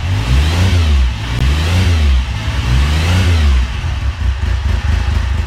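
Motorcycle engine revved repeatedly, the pitch rising and falling with each blip of the throttle, about four revs in a row.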